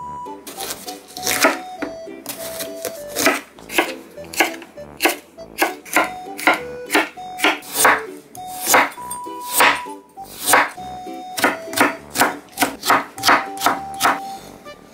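Santoku knife chopping bell pepper and carrot on a wooden cutting board: a run of sharp knocks, about two or three a second, over light background music.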